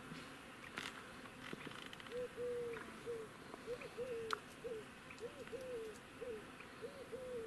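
A bird cooing faintly: a three-note phrase, short, long and falling, then short, repeated about every one and a half seconds from about two seconds in.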